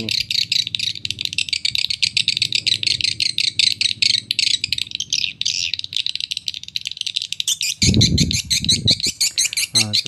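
Swiftlet call recording (a walet lure sound of young swiftlets) played through horn tweeters: a fast, unbroken, very shrill twittering of 'cicit-cicit' chirps, like swiftlets chasing each other. Two low rumbling bursts come in about eight seconds in.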